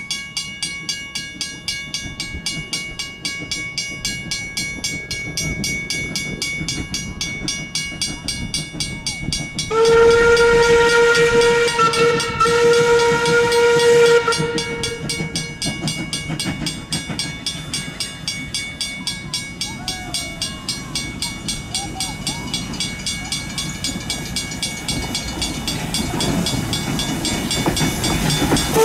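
Steam locomotive NM25 working towards the listener with a steady rhythmic exhaust chuff that grows louder near the end. About ten seconds in, its steam whistle sounds one long blast of a bit over four seconds.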